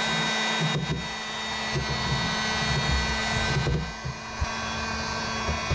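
Handheld electric heat gun running steadily, its fan blowing with a motor whine, as it heats asphalt sound-deadening mat on a car's steel trunk floor to soften it for scraping.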